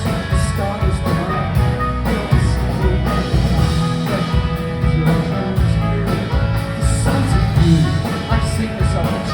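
Live rock band playing an instrumental passage between sung lines, with electric guitars, bass and a steady drum beat.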